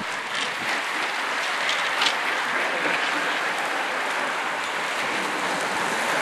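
Roadside spectators clapping steadily as a long line of racing cyclists rides past, with a few sharper claps in the first couple of seconds.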